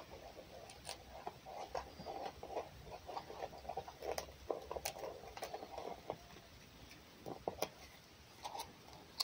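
A fox eating: irregular chewing and smacking with small sharp clicks.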